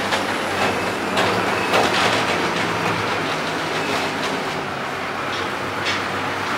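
Diesel engine of a mobile pump set running steadily with an even low hum, with a few brief clatters at about one, two and six seconds in.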